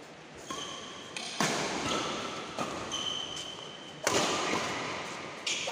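Badminton doubles rally in a large echoing hall: rackets striking the shuttlecock, sharp hits about a second and a half in and again near four seconds. Shoes squeak briefly on the court floor between the hits, with footfalls.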